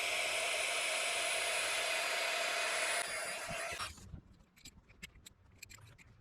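Small battery-powered electric air pump running with a steady whir of blowing air, then switched off about four seconds in. Faint clicks and handling noises follow.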